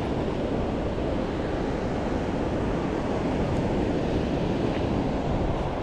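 Steady wind noise on the microphone over ocean surf.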